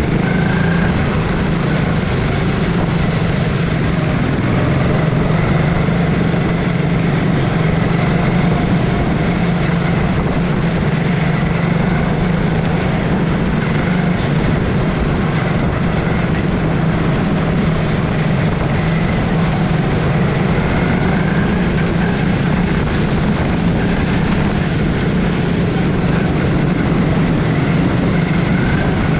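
Small single-cylinder Honda racing engines of quarter midget cars running together through a race, a steady unbroken drone with no lifts or pauses.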